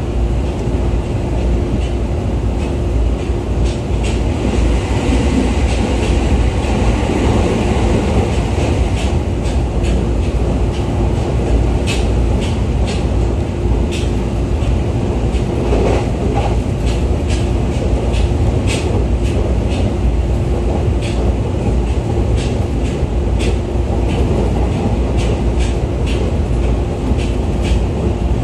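Running noise heard inside the cabin of a JR East E501 series electric train at speed: a steady low rumble of wheels on rail with a constant hum, and sharp short clicks scattered irregularly throughout.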